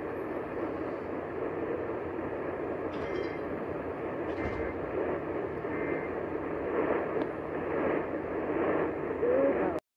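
Noisy radio reception, a steady hiss cut off above the treble, with three short data bursts about a second and a half apart: the EAS end-of-message tones. The audio cuts off abruptly just before the end.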